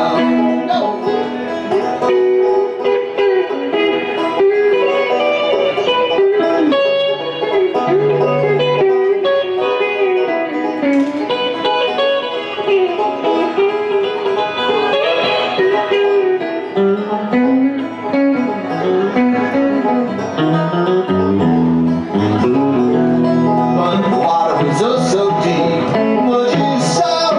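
Live bluegrass banjo and electric guitar playing an instrumental break together, without singing.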